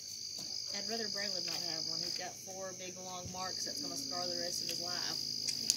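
Crickets trilling steadily on two high pitches; the lower trill stops for about a second in the middle, then comes back. Quiet voices talk underneath.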